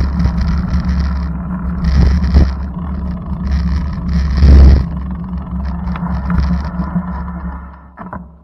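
Steady low rumble of a moving vehicle heard from inside, with bursts of hiss coming and going and a louder swell about halfway through. The noise dies away near the end.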